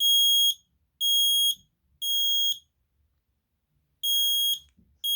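Kidde i1040 micro-profile ionization smoke alarm sounding its test in the three-beep temporal pattern: three loud, high-pitched beeps about a second apart, a pause, then the next group of beeps starting.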